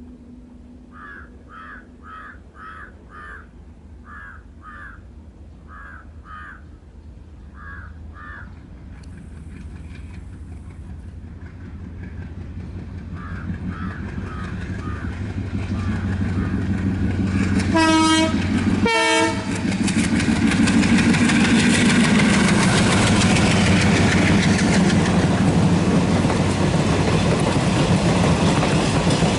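ALCO WDM3D diesel locomotive approaching with a passenger train, its engine chugging louder and louder. About eighteen seconds in it gives two short honks on its twin-tone horn, a second apart, each on a different note. The engine and the wheels on the rails then stay loud as the train passes.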